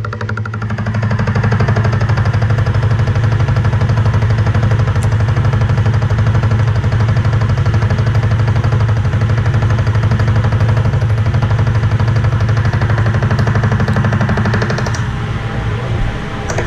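Milling machine cutting a dovetail into a steel tool holder shank with an insert dovetail cutter at about 600 RPM: a fast, even rattle of the interrupted cut over the steady hum of the machine. The cut bites about a second in and eases off near the end.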